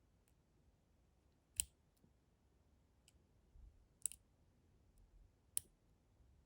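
Small metallic clicks of a dimple pick working the pins inside a Lince 3/50 dimple padlock under tension. There are three sharper clicks spaced a second or two apart, with a few lighter ticks between them.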